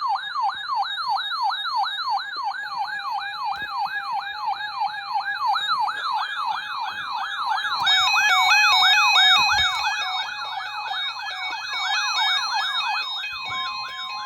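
Electronic siren wailing up and down quickly, about three sweeps a second. Partway through, further high alarm tones join it, stepping between fixed pitches, and a steady tone starts near the end.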